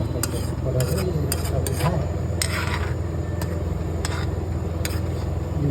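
Utensils clicking and scraping against a cooking pan or dish as the squeezed bee brood is prepared for frying, with faint voices and a steady low hum underneath.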